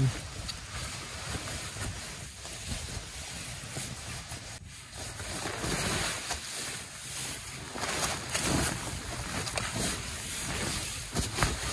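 Wind rushing over the microphone: a steady noise that surges and eases in gusts.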